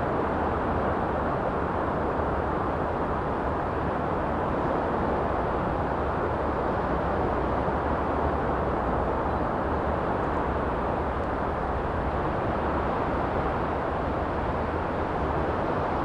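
Small sea waves washing onto a sandy beach: a steady, even rush of surf with no single wave standing out.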